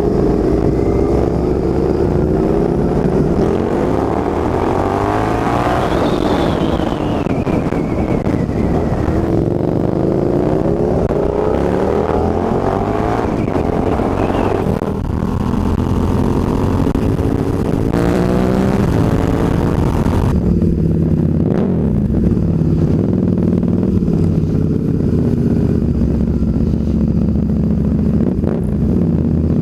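Suzuki SV650 V-twin motorcycle engine on the move with wind rush, its revs climbing and dropping repeatedly through the gears. About two-thirds of the way through the rush falls away and the engine settles to a steady low note as the bike slows.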